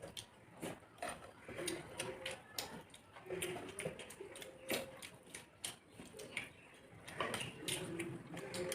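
Close-up eating sounds: chewing and lip smacking, with many sharp, irregular clicks and ticks and short humming tones now and then.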